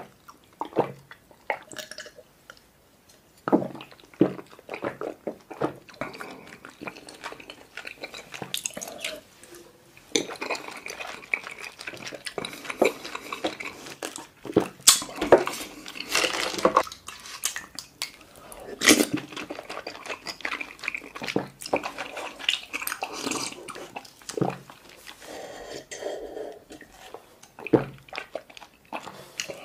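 Close-miked drinking and eating of bubble tea: slurps and gulps of milk tea from the cup and wet chewing of tapioca pearls, with clicks and knocks of cups being handled, and a longer run of slurping in the middle.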